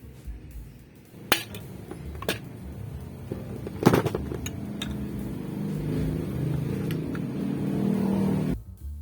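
A few sharp metallic clicks and knocks, then a small motor running for about four seconds that cuts off suddenly.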